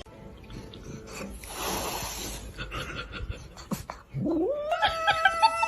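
Domestic cat yowling: a long drawn-out call that rises steeply in pitch about four seconds in and then holds. It comes after a short burst of hissing noise near the two-second mark.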